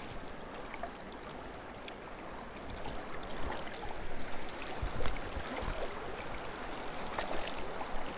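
Clear river current running and gurgling close to the microphone, a steady rushing wash with a few small splashes and knocks scattered through it.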